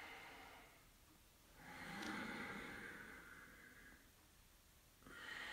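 A man's slow, audible yoga breathing: one long breath rises from about a second and a half in and fades after about four seconds, as he moves into chair pose, and a second breath starts near the end.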